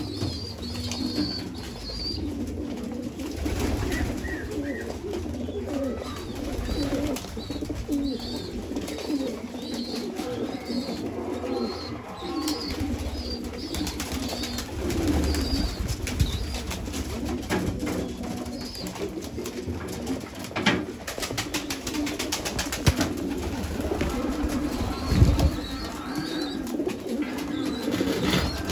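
A flock of domestic pigeons cooing continuously, with a short high chirp repeating over it and a few sudden wing flaps.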